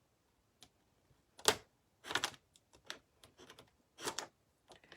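Irregular short clicks and taps, with a few scraping strokes, from cutting a rub-on furniture transfer sheet along a drawer edge. The loudest click comes about a second and a half in.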